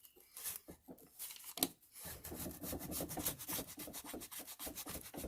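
Rubber spline being pressed and rolled into the groove of a window screen frame over the screen mesh: a few separate clicks, then from about two seconds in a continuous fast crackling rub.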